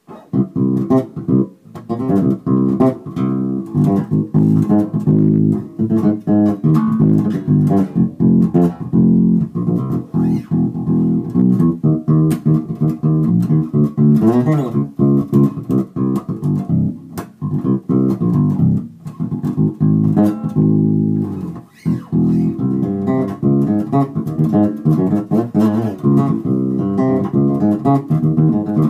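Carvin SB5000 five-string electric bass played fingerstyle: a continuous run of bass notes and riffs, broken by a few short pauses.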